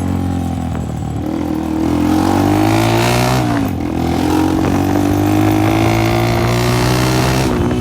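Honda CG 125 single-cylinder four-stroke engine with a burst silencer, running loud and open as the bike is ridden. Its pitch sags briefly, then rises with acceleration, drops sharply about halfway through at a gear change and climbs again.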